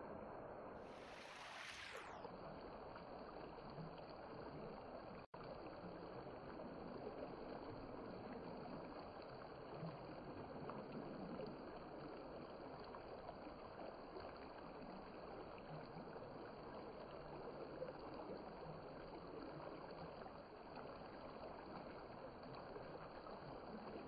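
Steady rush of a flowing river, with a brief higher hiss about a second in.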